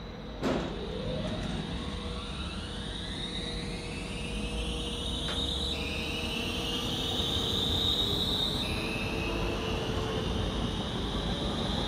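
BLS electric multiple unit pulling away from the platform: a sharp clack about half a second in, then the electric traction drive whining upward in pitch as the train accelerates, the whine dropping back abruptly twice and climbing again, over a low rumble of the running gear.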